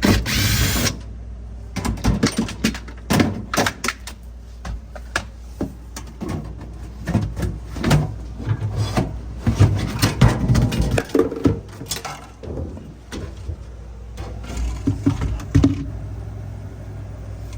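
Irregular knocks, clicks and clatter of hands and tools working on a refrigerator-freezer, opening into a short burst of noise about the first second, over a steady low hum.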